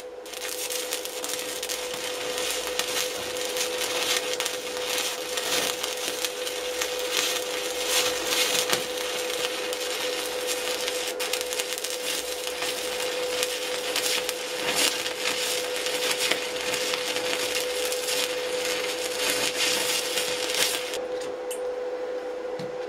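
Stick (MMA) welding arc crackling steadily as a weld bead is run with a 2 mm electrode on a Kaiser NBC-250L inverter welder set to about 83 amps. The arc stops about 21 seconds in, when the electrode is used up. A steady whine runs underneath.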